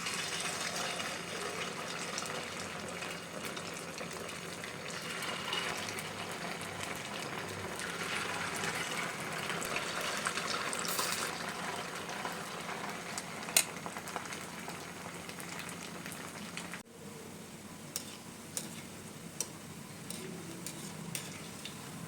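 Rice pakoras deep-frying in hot oil, sizzling steadily, with one sharp clack of a utensil a little past the middle. The sizzle drops off abruptly near the end, leaving a quieter hiss with a few light clicks.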